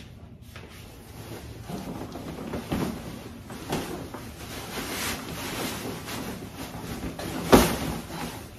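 A fabric garment bag rustling and swishing as it is swung down off a shoulder and handled, with one sharp slap or knock near the end, the loudest sound.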